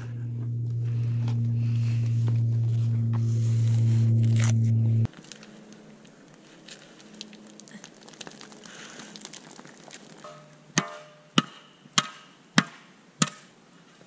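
A steady low droning tone, most likely from background music, for about five seconds, cutting off suddenly. Faint rustling follows, then five sharp, evenly spaced knocks about half a second apart near the end.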